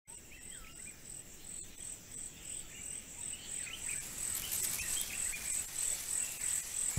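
Wild bush ambience: an insect chirping in an even, high-pitched pulse about three times a second, with scattered whistled bird calls. It grows gradually louder.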